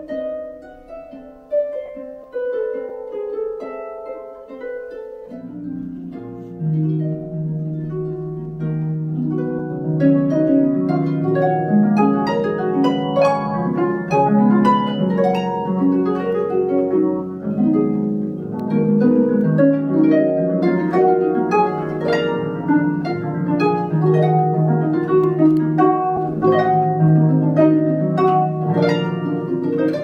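Solo concert harp playing: plucked notes in a sparse, higher passage at first, then low bass notes come in about five seconds in and the texture fills out, getting louder from about ten seconds in.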